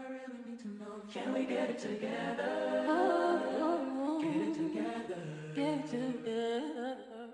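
Background music of a cappella-style singing, several voices in harmony, growing fuller about a second in and fading out at the very end.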